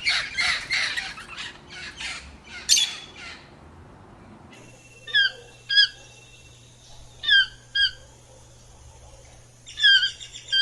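Birds squawking: a rapid run of harsh calls for about three seconds, then, after a change of recording, short downward-sliding calls in three pairs.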